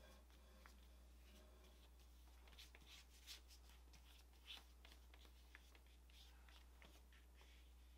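Near silence with faint scratchy strokes of a brush on paper: a handful of soft scrapes and ticks in the middle seconds over a low steady hum.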